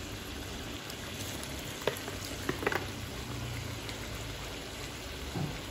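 Coconut-milk pork curry simmering and bubbling in a wok over a gas burner, a steady hiss with a few sharp clicks about two seconds in.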